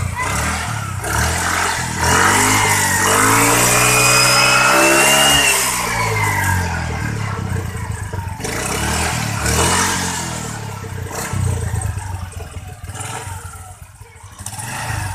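Suzuki Spin scooter's single-cylinder four-stroke engine revved up and back down: one long rev from about two seconds in, peaking near five seconds, then two shorter blips. This is a test run after cleaning the fouled spark plug, to check whether the coughing and backfiring when the throttle is closed is cured.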